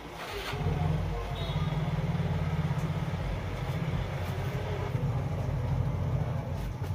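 Steady low engine-like rumble, setting in about half a second in and holding on.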